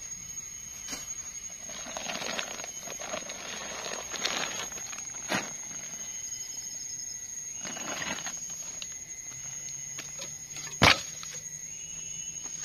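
A steady high-pitched whine under scattered rustling and light knocks, with one sharp knock a little before the end as the loudest sound.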